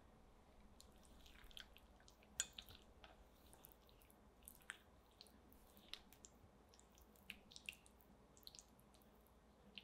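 Silicone spatula stirring melting dark chocolate and butter in a glass bowl over a pan of hot water: faint soft, squishy strokes with scattered light taps and clicks against the glass, the sharpest about two and a half seconds in.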